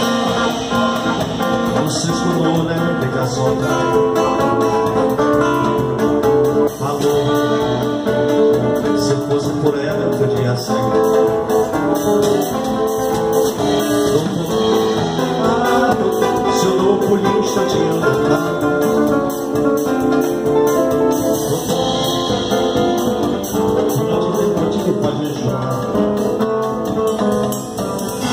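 Live samba played on two nylon-string acoustic guitars with a drum kit, a man singing lead over them. Cymbal strokes ring out now and then above the guitars.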